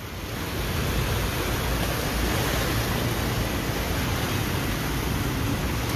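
A steady rushing noise of floodwater and wind with a deep rumble, growing louder over the first second and then holding even.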